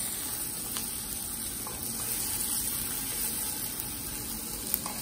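Steady hiss with a few light clicks of a metal spatula against a non-stick pan and a ceramic bowl as fried paneer strips are lifted out and laid down.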